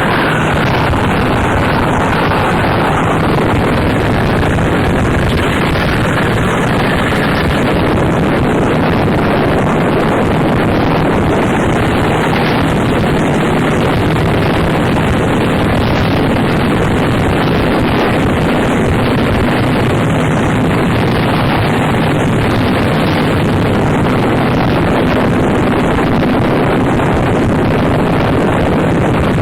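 Harsh noise music from a 2007 cassette release: a dense, unbroken wall of distorted noise at a constant loudness, with faint steady low drones under it and little above the upper midrange.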